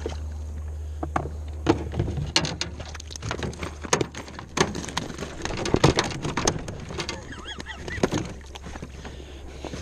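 Sounds of a small fishing boat on the water: irregular splashes and knocks over a steady low rumble, with a brief wavering squeak about three quarters of the way through.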